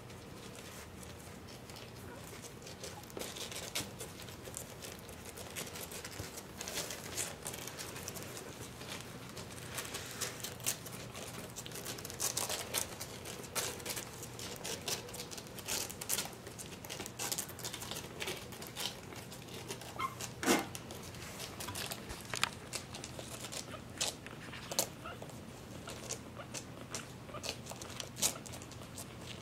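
Mal-Shi puppies, nearly three weeks old, crawling and scrabbling on fleece bedding: soft rustling and scratching with scattered small clicks, and one short squeak about two-thirds of the way through.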